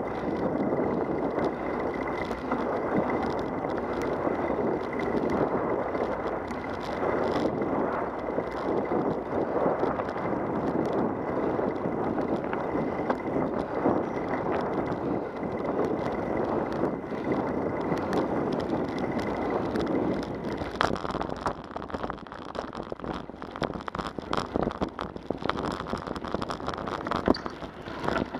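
Bicycle tyres rolling on a paved path, a steady rush with a faint steady high whine; about three-quarters of the way in the tyres move onto gravel and the rush turns to a crackling crunch.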